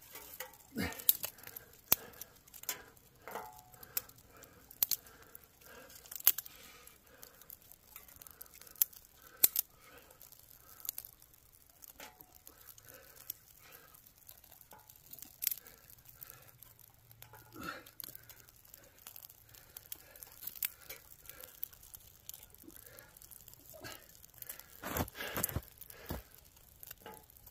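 Thin dry twigs snapped by hand and fed to a newly lit kindling fire: irregular sharp cracks with softer crackling between them, the loudest run of snaps near the end.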